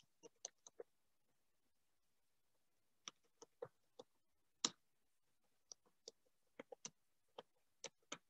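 Faint computer keyboard typing: irregular single keystroke clicks, with a pause of about two seconds about a second in.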